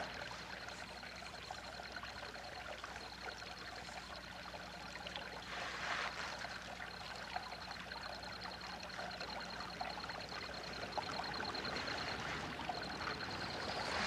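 Faint trickling, flowing water, with a high, fast trill that runs on with short breaks.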